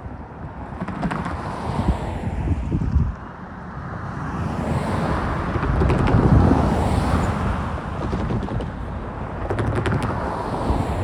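Freight train of grain cars rolling past: a steady rumble of steel wheels on rail that swells and eases, with sharp clicks of wheels over rail joints near the end.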